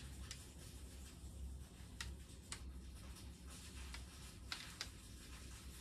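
Quiet room tone: a steady low hum with a handful of faint, short clicks scattered through it.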